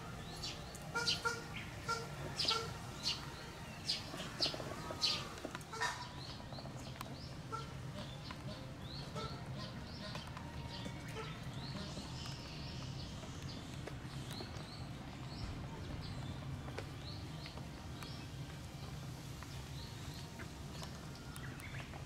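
Bar-headed geese feeding from a tub of chopped lettuce: quick pecks of their bills clicking and crunching, about two a second, for the first several seconds. Then scattered small bird chirps over a steady low hum.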